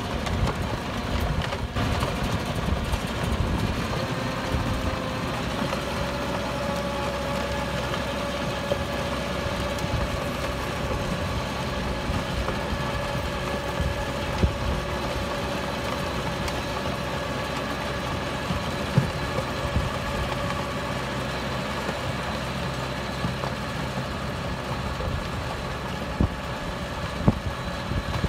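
Farm tractor engine running steadily as it pulls a four-row drip-tape injector toolbar through the soil, with a few short sharp knocks.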